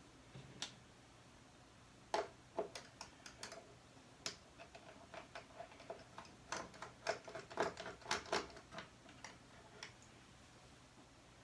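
Light, irregular clicks and taps of small hand tools and metal parts being handled inside an opened iMac, with a quicker cluster of clicks in the middle.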